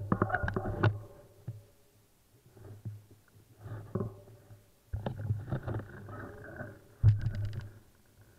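Off-road motorcycle engine running at low revs, with bursts of throttle at the start and again about five and seven seconds in, dropping nearly to idle between them.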